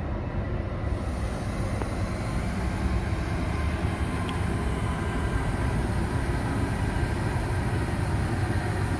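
Freight train led by NR class diesel-electric locomotives approaching, a steady low rumble of engines and wheels that builds over the first second and then holds.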